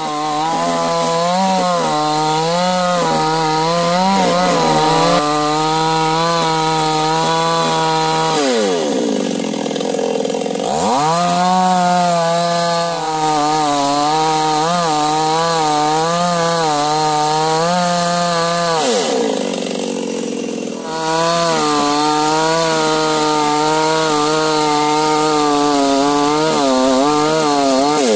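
Large two-stroke chainsaw cutting into a tree trunk at full throttle, its pitch wavering as the chain bites. Twice it drops back toward idle, about eight seconds in and again about nineteen seconds in, then revs back up to cut.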